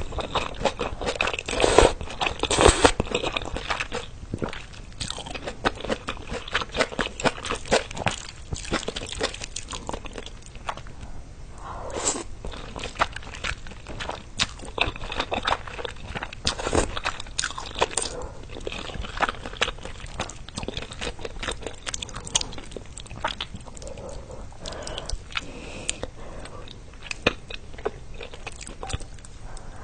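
Close-miked eating: a person biting into and chewing crunchy food, with many irregular crisp crunches and crackles.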